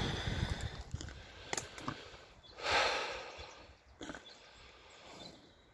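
A single heavy breath blown out about three seconds in, rising and then fading, with a few soft knocks and light rustling around it.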